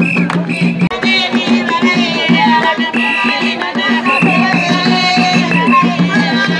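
Loud music with a steady, repeating drum beat and singing.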